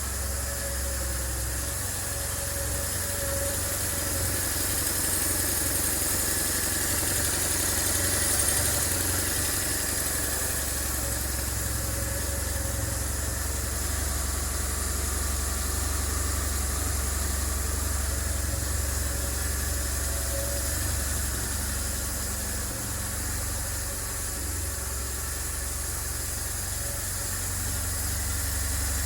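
BMW R 1150 GS air/oil-cooled boxer twin idling steadily. This is the engine with the strange noise that it is being taken apart to find.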